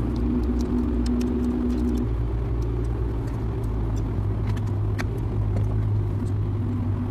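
Steady low engine-like drone, with a few light metallic clicks over it.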